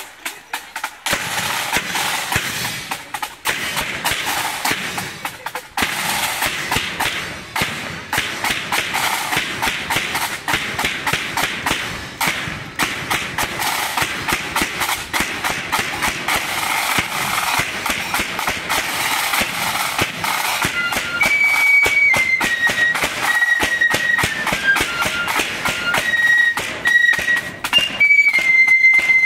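Marching flute band playing: flutes carry the tune over a steady bass drum beat, and the flute melody stands out clearly in the last third.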